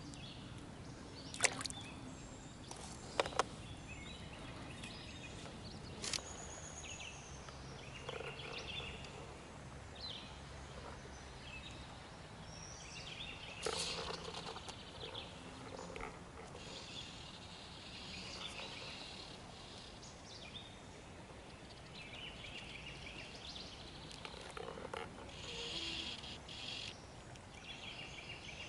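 Quiet creekside outdoor ambience with birds calling on and off. A few sharp clicks come in the first several seconds.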